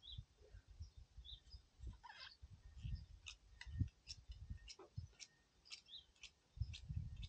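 Faint chirping of small birds, short high notes scattered throughout, over soft low thumps and rustles of hands handling a foam fishing-line winder.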